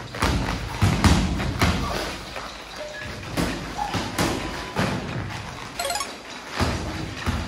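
Irregular thuds of bodies and hands hitting the training mats during jiu-jitsu practice, several to a second.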